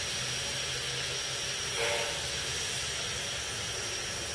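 Robert Dollar Co. No. 3 steam locomotive standing with steam escaping low at the front near the cylinders, a steady hiss, with a brief louder burst about two seconds in.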